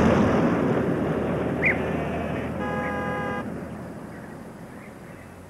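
Small mail van driving away, its engine noise fading steadily, with one short horn toot about two and a half seconds in that lasts under a second.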